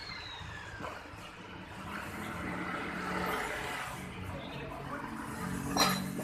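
A corded electric power tool winding down with a falling whine in the first second, followed by low, mixed workshop noise and a single sharp knock near the end.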